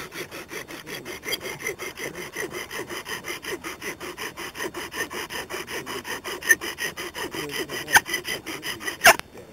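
Bow drill fire-lighting: a wooden spindle spun by a corded bow grinds in a notched wooden hearth board. It makes a fast, even rasping rub, hot enough to send up smoke as the friction works toward an ember. A sharp knock comes near the end, and then the grinding stops.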